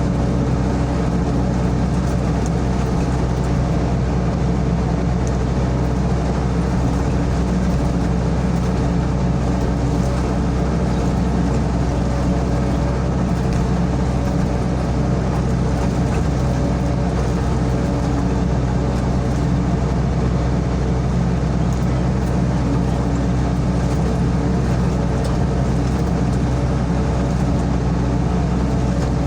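Sany SY55C mini excavator's diesel engine running steadily under work.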